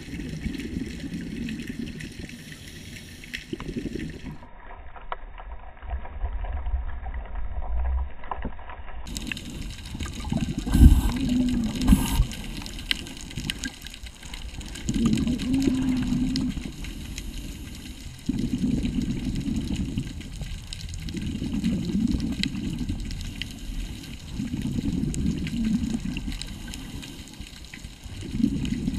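Scuba regulator breathing heard through a GoPro's underwater housing: the exhaled air bubbles out in a low, rumbling burst every few seconds. Two sharp knocks come about a third of the way in.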